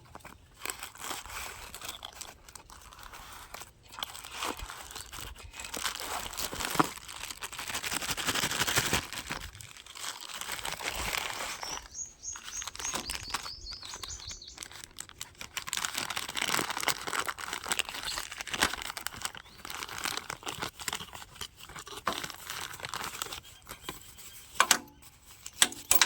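Packaging being opened by hand: plastic and paper crinkling, tearing and rustling in irregular bursts. A bird chirps briefly about halfway through.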